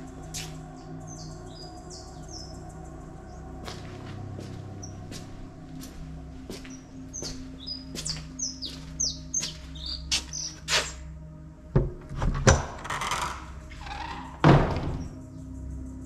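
Small birds chirping outside and scattered footsteps. Near the end come two loud thunks with a rush of noise as an old paneled wooden door is handled and pushed open.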